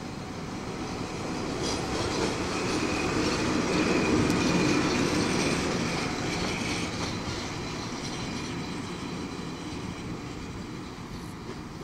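A CTL Logistics class 182 (ET22-type) electric locomotive passing on the station track. Its rumble grows to a peak about four to five seconds in, with a steady high whine heard during the pass, then fades as it moves away.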